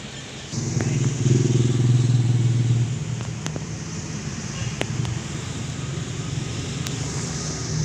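A motor vehicle engine running close by, loudest for about two seconds after it comes in half a second in, then running on more quietly. A few sharp clicks sound over it.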